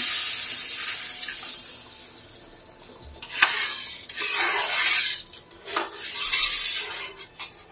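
Milk poured into a hot kadhai of ghee-roasted semolina, hissing and dying away over the first two and a half seconds. Then a metal spatula stirs and scrapes the pan in several separate strokes.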